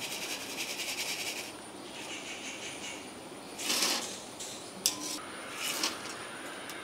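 Hot coconut oil sizzling around frying maida rings, then the crisp rings tipped from a slotted ladle into a wire-mesh strainer with a short dry rattle about four seconds in. A sharp metal tap of the ladle on the strainer follows, then another brief rattle. A crisp rattle like this is the sign that the rings are done.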